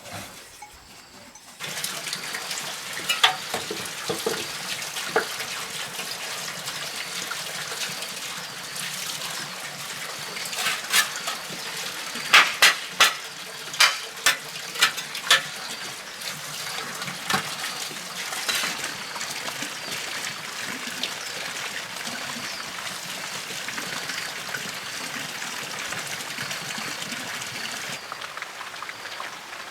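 Steady rushing of running water, with a quick run of sharp knocks about halfway through.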